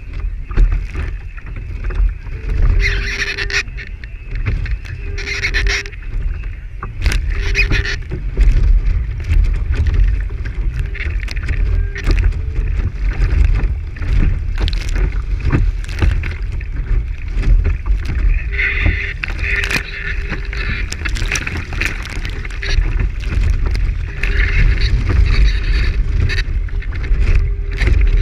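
Water rushing and splashing along the hull of a Lintel IOM radio-controlled sailing yacht as it sails through choppy water, with wind rumbling on the stern-mounted camera's microphone and frequent sharp spray hits.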